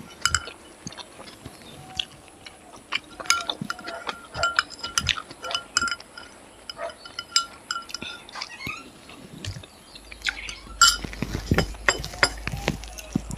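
Metal spoon clinking against a ceramic plate and a glass bowl in short, irregular taps, some leaving a brief ring, amid close-up chewing of rice and chicken curry eaten by hand.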